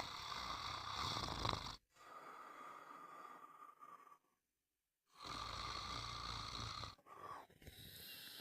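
Snoring: two snores about four seconds apart, each lasting under two seconds, with a softer breath between them.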